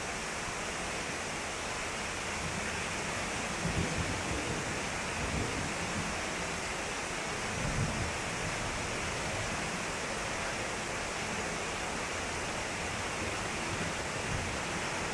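Heavy tropical downpour: a steady hiss of rain pouring onto the paved street, with water streaming across the ground. Two brief low thuds come about four and eight seconds in.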